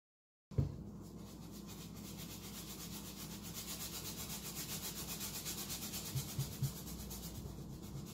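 Paintbrush scrubbing back and forth on a canvas in quick, even strokes, with a knock just after it starts and a few light taps about six seconds in.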